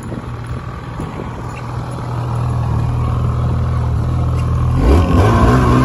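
Snowmobile engine running steadily, getting gradually louder, then revving up about five seconds in as the sled sets off across the snow.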